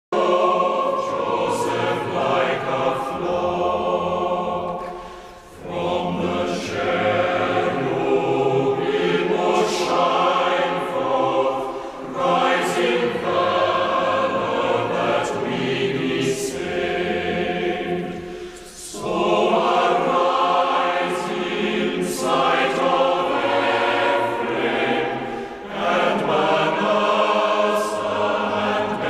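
A choir singing in long, slow phrases, with a short break between phrases about every six or seven seconds.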